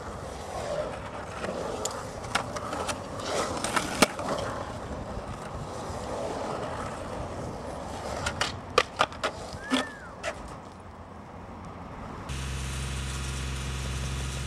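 Skateboard wheels rolling over a concrete bowl, with sharp clacks of the board against the concrete, a quick cluster of them about eight to nine seconds in. Near the end it cuts to an engine running steadily.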